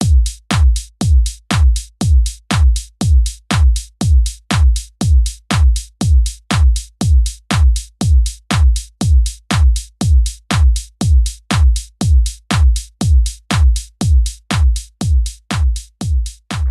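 Intro music: a steady electronic kick-drum beat, about two beats a second, fading out near the end.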